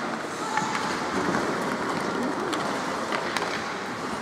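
Ice hockey play on a rink: a steady hiss of skates on the ice with a few sharp clacks of sticks and puck.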